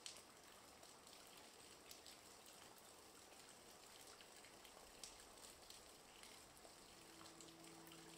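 Faint steady rain, an even hiss with scattered small drop ticks. Soft held music notes come in near the end.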